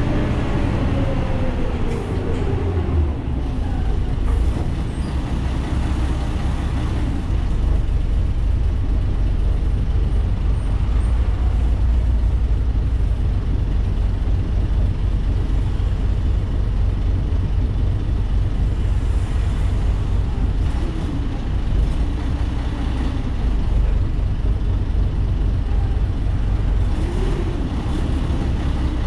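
Ikarus 435 articulated bus heard from inside while under way: a steady deep diesel engine and road rumble, with a whine falling in pitch at the start and short rising whines near the end.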